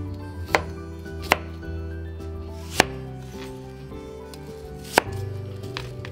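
Kitchen knife cutting peeled pear on a cutting board: about five sharp knocks of the blade meeting the board, spaced unevenly, over soft background music.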